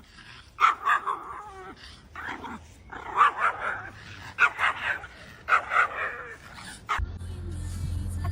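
A dog giving a run of about five short whiny barks and yips, one roughly every second, as if talking back. A low steady hum comes in near the end.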